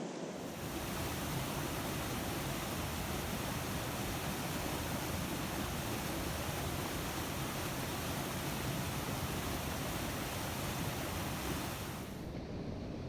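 Steady rushing of a mountain stream's flowing water, an even hiss with no breaks. It turns brighter about half a second in and duller again about a second before the end.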